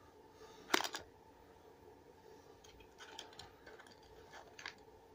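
Frog lures being put back into a plastic tackle box: one sharp plastic click a little under a second in, then a scatter of lighter clicks and taps.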